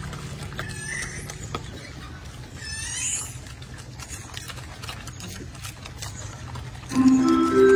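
Two short rising animal chirps, one about a second in and another about three seconds in, over a low steady background noise. Near the end, music with bell-like tones comes in.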